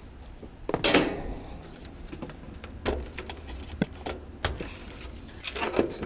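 Scattered clicks and knocks of hand tools and meter leads being handled against the metal cabinet and wiring of an air-conditioner condenser. There is one loud knock about a second in and a quick cluster of clicks near the end.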